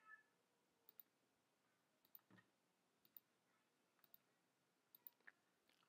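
Faint, scattered clicks of a computer mouse and keyboard as spreadsheet cells are selected and filled in, about one or two a second, against near silence.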